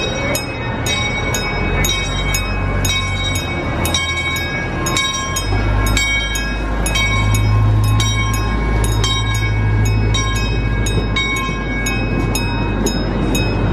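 A railroad crossing bell rings steadily about twice a second while a miniature park train passes. The locomotive's low rumble comes in about five seconds in and stays under the bell as the cars go by.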